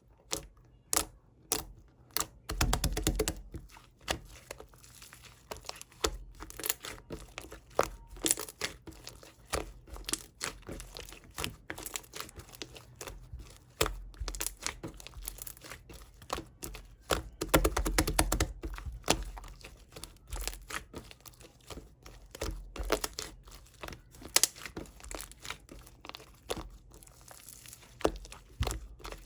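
Crinkly wrapping being handled: repeated crinkling and tearing with scattered sharp taps and clicks, denser around 3 seconds in and again around 18 seconds in.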